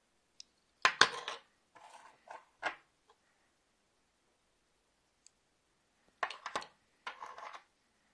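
Metal wristwatch cases clicking and clattering as they are handled, turned over and set down among other watches on a table. It comes in two spells of short clicks and scrapes, one about a second in and one about six seconds in.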